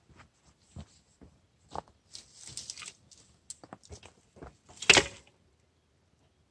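A bundle of dry branches drops onto a small pine-twig fire in a steel fire ring with a loud clattering crash just before five seconds in. Before it come scattered small snaps and crackles and a brief rustle of twigs.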